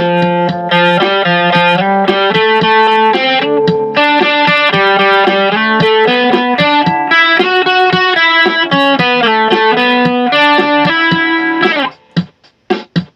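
Electric guitar played through a Joyo DC30 amplifier: a run of picked notes and chords, several notes a second. About twelve seconds in the playing breaks off into short, separate snatches with gaps between them.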